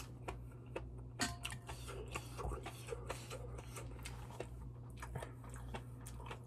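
Eating sounds: irregular small clicks and taps of mouth and utensils, with one louder clink that rings briefly about a second in, over a steady low hum.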